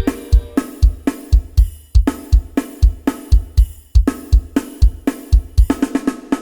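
Isan lam sing style instrumental music: a drum kit keeps a fast, steady bass-drum beat of about four strokes a second, with snare and hi-hat, over pitched backing instruments. Near the end the drums play a quicker fill.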